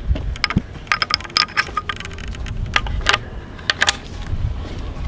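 A series of sharp metallic clicks and clacks from the action of a Springfield Model 1873 trapdoor carbine being loaded: a .45-70 cartridge goes into the open breech and the hinged breechblock is swung shut.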